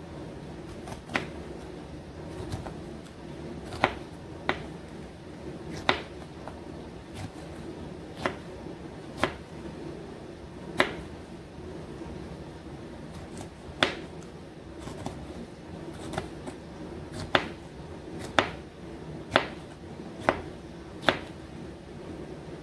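A kitchen knife slicing hot peppers on a plastic cutting board: sharp, separate taps of the blade striking the board at an uneven pace, about one a second, over a steady low hum.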